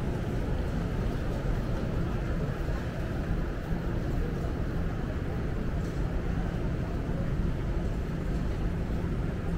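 Steady low rumble of a large indoor station concourse's ambience, with a faint steady hum from air handling and a faint murmur of distant people.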